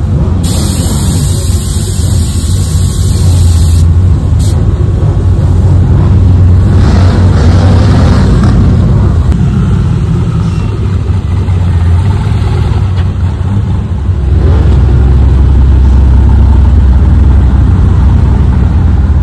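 Pickup truck engines and exhausts running as the trucks roll slowly past. A deep low sound runs throughout and gets louder in the last five seconds.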